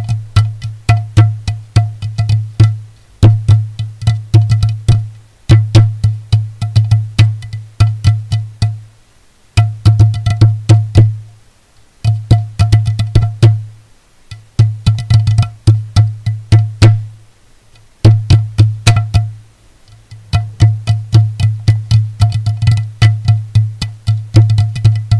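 Background music: quick percussive hits over a deep, steady bass note, in phrases that break off briefly every few seconds.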